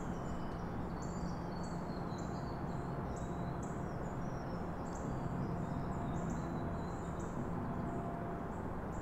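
Small birds chirping in quick, short high notes, many of them overlapping, over a steady low background rush of the woods.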